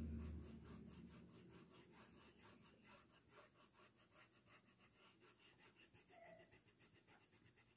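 Faint, quick scrubbing of a paintbrush on cotton fabric, about six strokes a second, as green fabric paint is blended in small circular movements.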